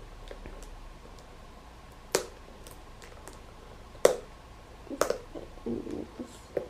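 Plastic blister packaging of a toy figure being handled and pried open: sharp plastic clicks and snaps about two, four and five seconds in, the one near four seconds the loudest, then a run of smaller crinkling clicks near the end.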